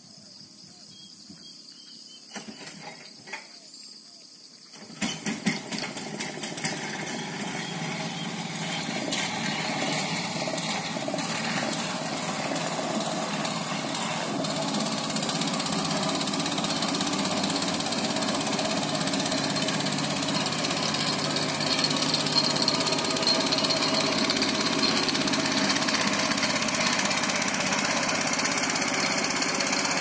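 Insects trill steadily, then about five seconds in a small wooden motorboat's engine comes in with a rapid knocking beat and runs on, growing gradually louder.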